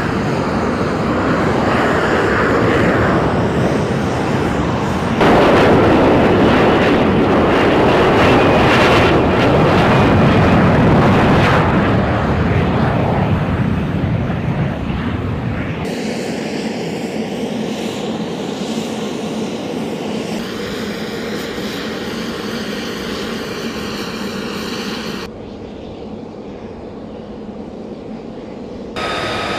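F-35B Lightning II's Pratt & Whitney F135 jet engine running loud as the jet hovers and lands, then quieter as it sits on the runway. The noise changes abruptly several times.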